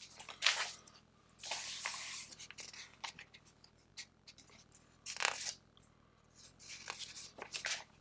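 Paper pages of a LEGO instruction booklet being turned and handled: several short rustles, with a longer swish about one and a half seconds in and another cluster near the end.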